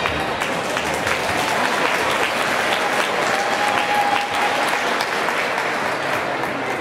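Audience applauding, many hands clapping steadily, as a dance ends and the music stops.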